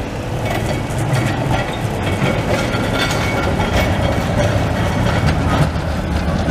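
Bern articulated electric tram running past on a curve over grooved street rails: a steady low rolling sound from the wheels with many quick clicks and rattles, growing slightly louder about a second in.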